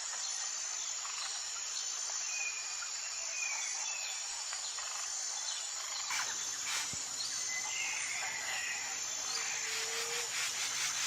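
Birds chirping in short, scattered calls over a steady, high-pitched insect-like trill.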